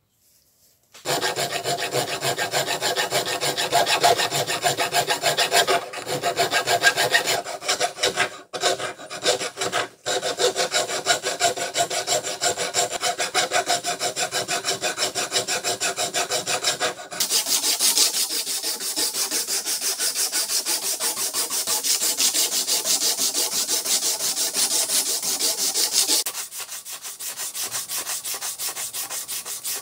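A metal hand file rasps across the screwdriver's wooden handle in quick back-and-forth strokes, with a few brief breaks, smoothing and shaping the wood. From about two-thirds of the way in the scraping turns brighter and hissier. Near the end it becomes a quieter rubbing as a strip of abrasive cloth is pulled back and forth around the handle.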